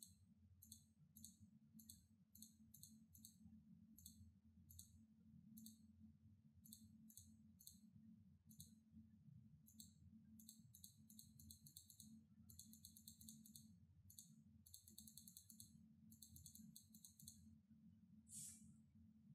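Faint clicking of a computer mouse and keyboard, single clicks at first, then quick runs of rapid clicks in the second half, over a low steady hum. A brief hiss near the end.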